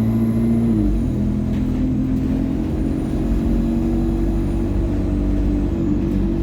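ADL Enviro200 single-deck bus running under way, with the whine of its Allison automatic gearbox and turbocharger over the engine's rumble. The steady whine tones shift in pitch about a second in, then hold.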